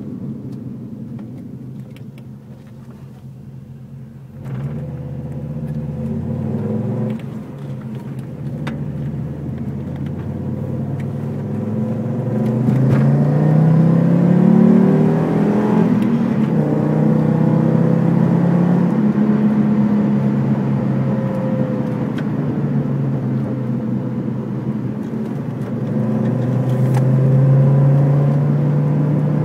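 Audi 80 quattro's 2.3-litre five-cylinder engine heard from inside the cabin. It is quieter for the first few seconds, then pulls hard from about four seconds in, its pitch rising several times with gear changes between. It runs steadily for a while, then rises again near the end.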